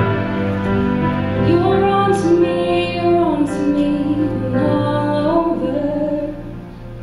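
Female voices singing a wordless, sliding vocal line of held notes over a sustained piano accompaniment; the singing drops away about six seconds in, leaving the softer piano.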